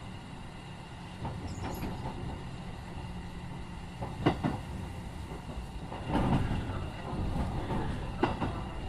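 Keikyu 1500 series electric train car running on the line: a steady low rolling noise, with the wheels knocking sharply over rail joints several times from about four seconds in.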